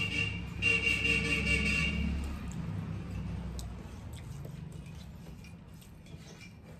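A passing vehicle honks its horn, a short blast then a longer one of about a second and a half, over an engine rumble that fades away over the next few seconds. After that, faint clicks and smacks of eating by hand from steel plates.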